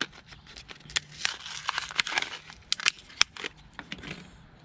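Plastic packaging crinkling and crackling, with a string of sharp clicks, as a new bulb is taken out of it by hand.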